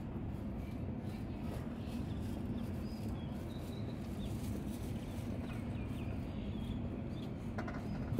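Steady background noise of a street-food stall: a low hum with faint scattered clicks and a few short, faint high chirps.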